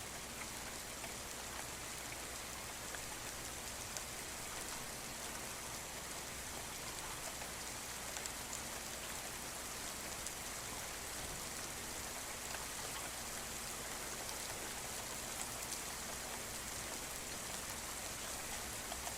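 Steady rain falling, an even hiss with faint ticks of single drops scattered through it.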